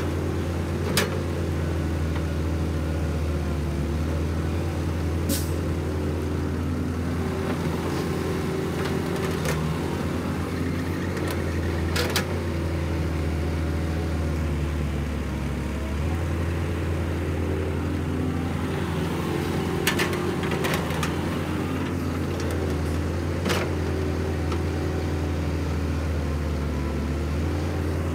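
Caterpillar 312 hydraulic excavator's diesel engine running steadily as it digs, with a handful of sharp metallic clanks from the bucket and boom linkage.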